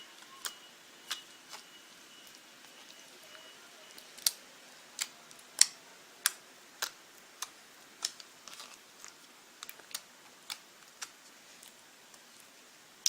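Clear slime squeezed and stretched by hand, making sharp clicking pops at irregular intervals, about one or two a second.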